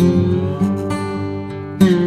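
Background music: acoustic guitar picking, with notes plucked and ringing.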